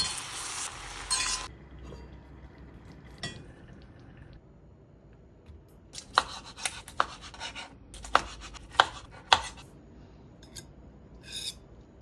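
Kitchen cooking sounds: a loud hiss cuts off suddenly about a second and a half in, then scattered sharp clinks and knocks of utensils against cookware, most of them in the second half.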